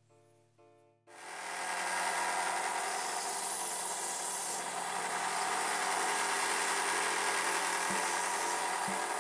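Benchtop spindle sander running, starting about a second in, with a steady motor hum under the rasp of its sanding drum grinding a small laminated wooden part held against it.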